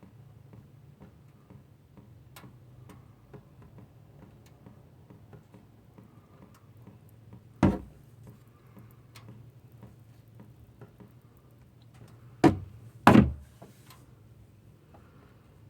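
Three loud knocks, one about halfway through and two in quick succession near the end, over a faint steady low hum and light ticking.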